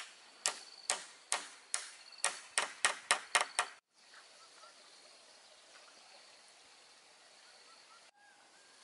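A series of about ten sharp knocks over the first four seconds, coming quicker toward the end. They are followed by a faint steady outdoor background with a thin high tone and a few faint chirps.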